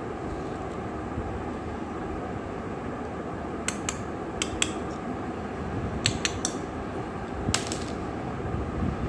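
Hard plastic toy fruit pieces clicking and knocking together and against a plastic basket as they are handled. There are several short, sharp clicks in small clusters from about three and a half seconds in, over a steady low background noise.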